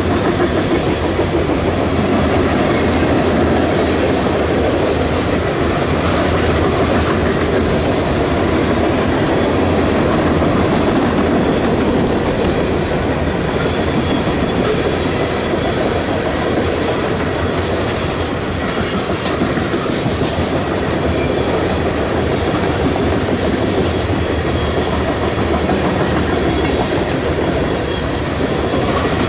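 Freight cars of a passing train, covered hoppers, boxcars and tank cars, rolling by: a steady rumble and clatter of steel wheels on rail. A faint high wheel squeal comes in briefly a little past the middle.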